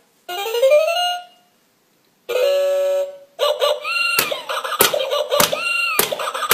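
Electronic hit-the-hamster (whack-a-mole) game toy making its sound effects through a small speaker: a rising electronic sweep, a short silence, a steady beep, then an electronic game tune with a regular beat a little under twice a second.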